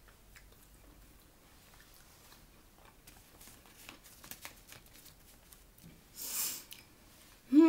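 Faint chewing with small wet mouth clicks and smacks while eating soup and pizza. About six seconds in there is a short breathy hiss, and right at the end a loud hummed voice sound with falling pitch begins.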